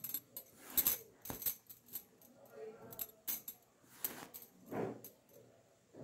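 Hand embroidery: a needle and thread drawn through stiff cross-stitch cloth in a plastic hoop, making several short, faint swishes with small clicks between them.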